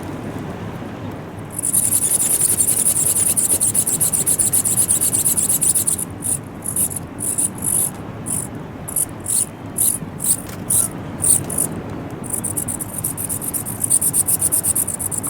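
High-pitched buzzing of a digital servo driving an ornithopter's flapping wings. It comes in a couple of seconds in and runs steadily, then switches on and off in short bursts, then runs steadily again near the end. Low wind rumble on the microphone runs underneath.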